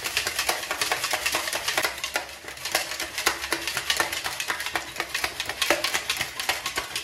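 Stainless steel shaker bottle being shaken hard by hand to mix cold coffee, ice cubes rattling against the metal in a fast, continuous clatter.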